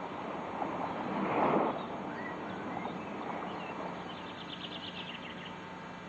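Outdoor nature ambience: a steady wash of wind noise that swells louder about a second and a half in, with a few short bird chirps and a quick run of rapid chirps near the end.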